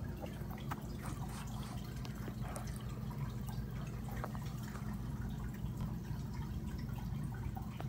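Running aquarium water: a steady low hum under scattered small drips and plinks of water.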